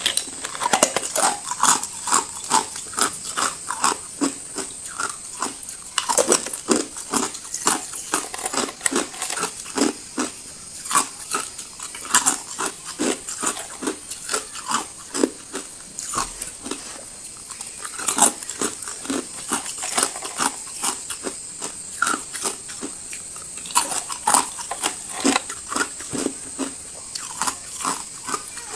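Clear ice cubes being crunched and chewed between the teeth, close to the microphone: a dense run of sharp, irregular crunches, several a second, with short pauses between mouthfuls.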